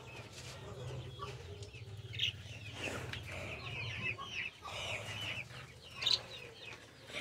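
A flock of chickens clucking, with short calls every second or so.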